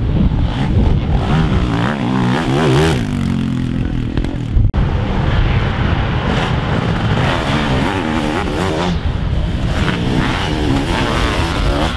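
Sidecarcross outfits racing, several engines running hard at once, their pitch rising and falling as the throttles open and close and the gears change.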